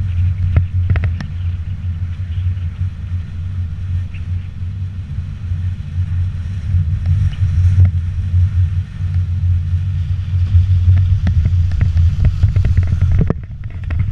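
Steady low wind-and-road rumble from a vehicle-mounted action camera moving along a rough, wet dirt road, with frequent short knocks and rattles from bumps.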